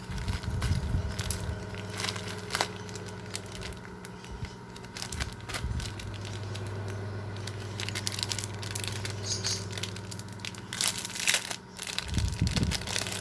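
Parcel packaging being crinkled and torn open by hand: irregular crinkling and crackling with a few louder handling bumps, over a steady low hum.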